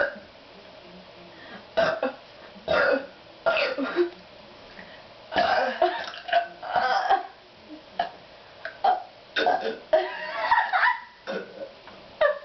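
A string of loud human burps, about eight, some short and a couple drawn out, forced up after gulping carbonated Pepsi.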